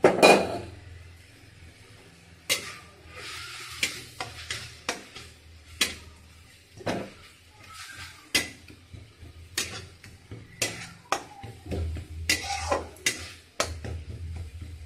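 Spatula knocking and scraping against a kadhai as masala with fresh coriander is stirred and fried, with a light sizzle. There is a louder knock right at the start, then irregular clinks and scrapes every half second or so.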